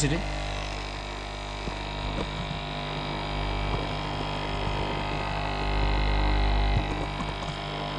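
Nescafé Dolce Gusto capsule coffee machine brewing, its pump running with a steady electric hum as it pushes hot water through the capsule into the cup.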